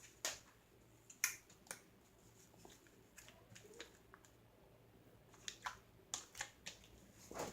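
Sticky slime squeezed and pulled in the hands, making faint irregular clicks and pops, about a dozen over several seconds.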